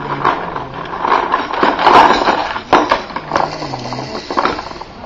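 Household room noise: indistinct background voices with several sharp knocks and clatter.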